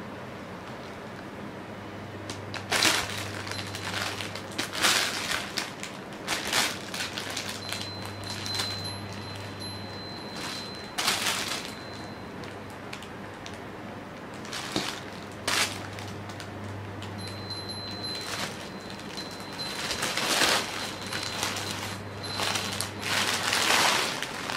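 Nylon fabric rustling and crinkling in repeated bursts as a cat squirms about inside a nylon sack toy.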